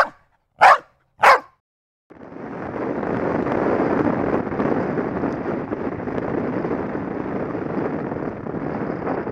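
Three short dog barks about half a second apart, then a brief silence. From about two seconds in, a dirt bike's engine and wind rush run steadily, picked up by a camera mounted on the moving bike.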